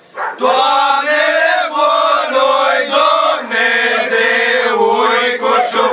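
A group of young men singing an old Romanian antiphonal Christmas carol (colindă) in chant-like style. After a short breath at the start they hold long, drawn-out notes.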